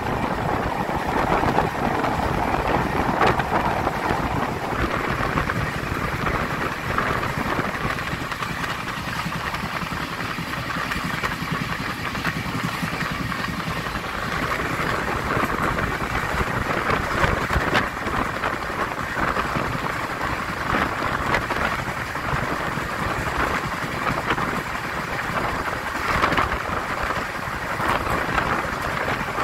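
LHB passenger coaches running at speed, heard from an open doorway: a steady rush of wind and wheels on the track, with a few sharp clicks from the rails.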